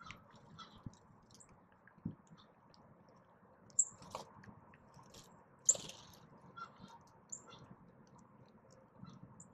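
Mourning dove and house sparrows pecking at birdseed on the ground close to the microphone: a scatter of small clicks and ticks, with two sharper clicks about four and six seconds in.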